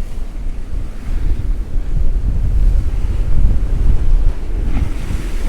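Storm gale buffeting the microphone in a heavy, gusting rumble over the noise of big North Sea waves surging against a sea wall. A rushing hiss of water rises near the end.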